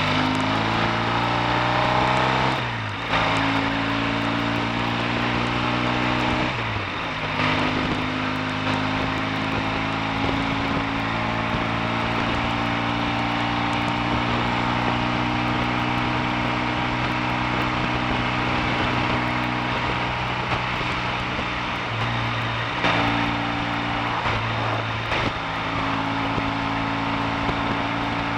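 Triumph T140V's 750 cc parallel-twin engine under way on the road, pulling up through the gears: the note drops with a brief break at each upshift, about three and seven seconds in, then holds a steady cruise. Near the end the note shifts a few more times as the speed changes.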